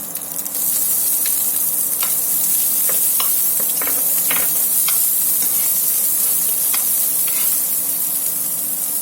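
Chopped onion sizzling in a hot pan of coconut oil with mustard seeds, peanuts and curry leaves; the sizzle jumps up about half a second in as the onion hits the oil. A spatula stirring the pan, with scattered scrapes and taps on the metal.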